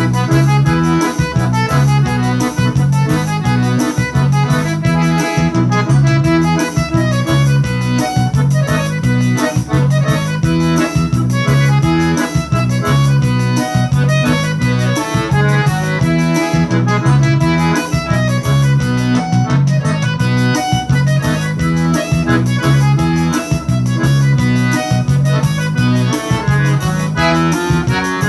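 Piano accordion playing a piseiro-style forró tune, the melody on the treble keys with bass buttons underneath, over a steady backing beat with a repeating bass line.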